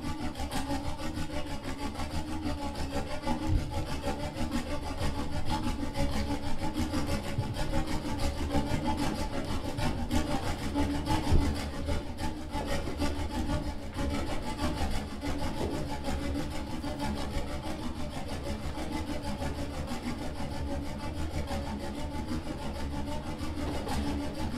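Accordion played with extended technique: hands rubbing and scraping over the instrument's body, a continuous grainy scraping texture with a low hum underneath and no melody.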